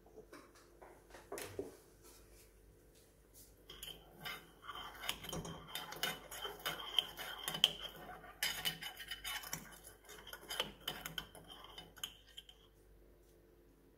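Metal teaspoon stirring coffee inside an aluminium moka pot, clinking and scraping against the pot's sides. A few light clicks come first, then quick, steady stirring with a high ringing tone from about four seconds in until shortly before the end.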